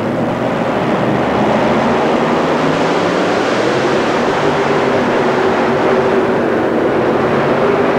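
Supercharged multi-engine modified pulling tractor running loud and steady at full throttle as it drags the weight sled. The engine note holds its pitch throughout. Commentators judge that it lacks the horsepower on this pull, with the front engine possibly hurting.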